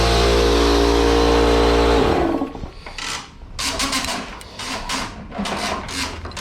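Electric cleaning appliance running with a steady motor whine and rush of air, used to clear tree debris from the car's vent area. It is switched off about two seconds in and winds down in pitch. After that come a string of short knocks and rustles.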